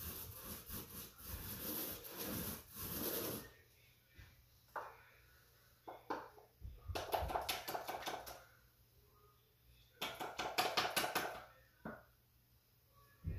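Paint roller rasping across a drywall wall for about three seconds, then two louder bursts of quick back-and-forth rolling as the roller is worked low down, as when loading it with paint.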